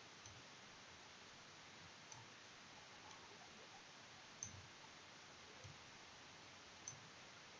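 Faint computer mouse clicks, about five or six spread a second or so apart, the loudest about halfway through, over a steady low hiss.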